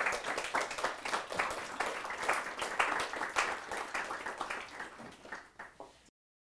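Audience applauding: a dense patter of many hands clapping that thins out near the end and then cuts off abruptly.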